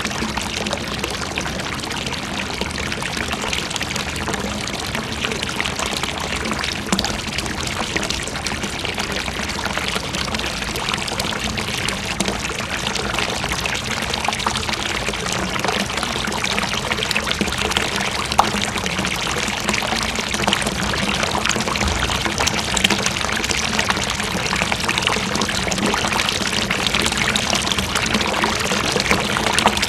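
Water pouring and splashing steadily into a water basin, a continuous rushing hiss that grows slightly louder in the second half.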